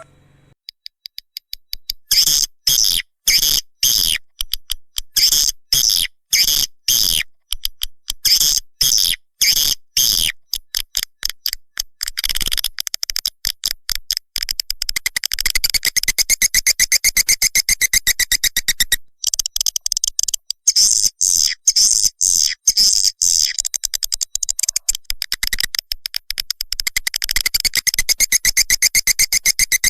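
Swiftlet lure call played for a swiftlet house: trains of rapid, high, clicking chirps, at first in separate pulses two or three a second, then about halfway through thickening into a near-continuous twitter.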